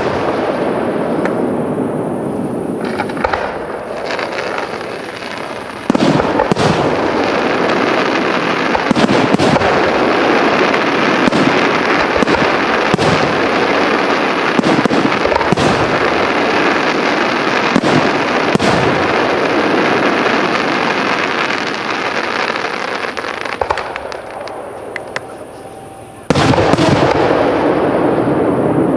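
Aerial fireworks shells bursting in rapid succession, a dense continuous wash of bangs. The noise jumps louder about six seconds in, fades off in the last few seconds, then jumps back sharply as a new volley starts just before the end.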